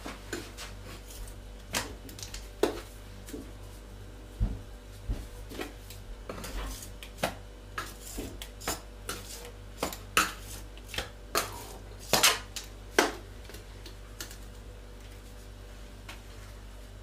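Metal kitchen tongs clacking against each other and knocking on a wooden chopping board while raw chicken breasts are turned over, an irregular string of sharp clicks.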